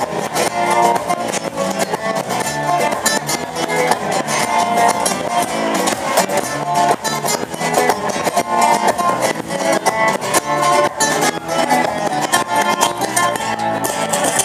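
Background music: a plucked guitar tune with a steady rhythm.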